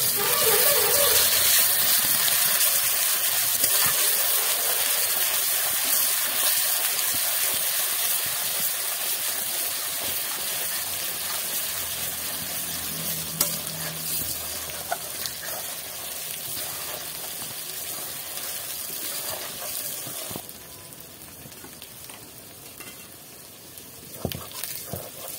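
Onion and garlic paste sizzling as it fries in hot oil in an aluminium kadai, stirred and scraped with a metal spatula. The sizzle is loudest at first and slowly dies down as the paste fries, dropping off sharply about three-quarters of the way through, with a few clicks of the spatula against the pan.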